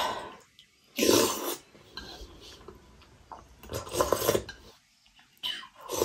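Slurping chicken soup off a metal spoon: three loud slurps, about a second in, around four seconds and near the end. Between them, the spoon clinks against a ceramic bowl and there are quieter mouth sounds.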